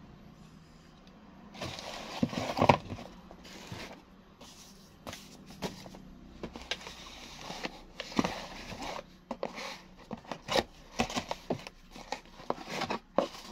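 Cardboard boxes and plastic packing wrap handled by hand: rustling and crinkling with irregular taps and knocks of cardboard, loudest about two to three seconds in.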